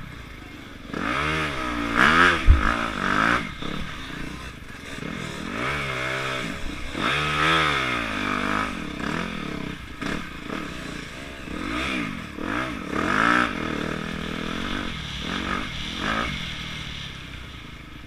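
Yamaha YZ dirt bike engine revving up and falling back again and again as the rider works the throttle and gears, with clattering from the bike over rough ground. A hard thump about two and a half seconds in, and the engine settles lower near the end.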